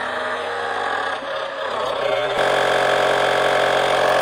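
AUXITO A501 portable tire inflator's small electric compressor running steadily while pumping a road bike tire through a Presta valve adapter toward 105 PSI. Its tone changes abruptly about two and a half seconds in.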